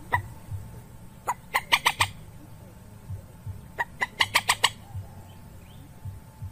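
Common moorhen calling: short, sharp clucking notes, singly and in quick runs of four to six, over a low steady hum.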